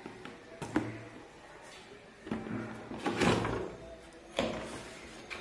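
Cardboard box being opened by hand: packing tape slit with a blade, then the cardboard flaps pulled open. A couple of sharp clicks early, a longer scraping rustle of cardboard in the middle (the loudest part), and a sharp knock near the end.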